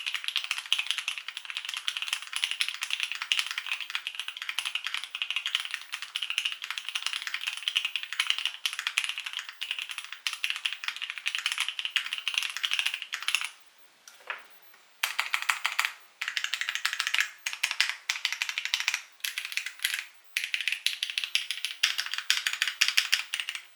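Fast, continuous typing on a LuminKey75 mechanical keyboard with an aluminum plate: a dense stream of key clacks. Past the halfway mark the typing stops for about a second and a half, then goes on in spurts with short breaks.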